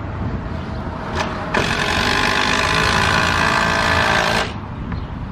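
A power drill runs with a brief burst, then a steady run of about three seconds that stops abruptly, over a low background rumble.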